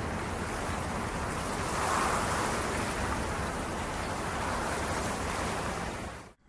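A steady rush of wind noise that swells about two seconds in, then cuts off suddenly near the end.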